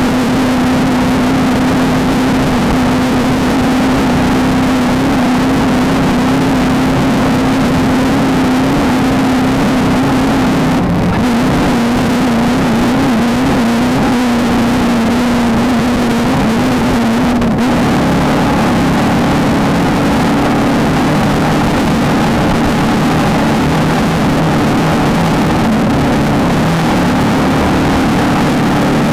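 Off-road race car's engine running hard at fairly steady revs, loud and continuous, with two brief dips in the sound about eleven and seventeen seconds in.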